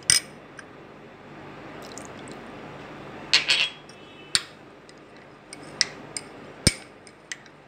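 Metal spoon stirring thinned yogurt in a small glass bowl, with scattered sharp clinks of the spoon against the glass, a quick cluster about three and a half seconds in and single clinks after.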